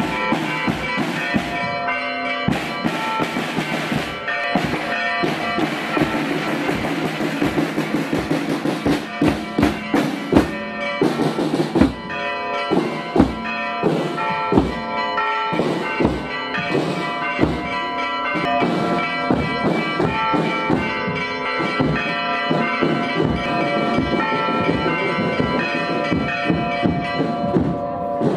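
Church bells ringing in a rapid, irregular festive peal, strike after strike, their tones ringing on and overlapping.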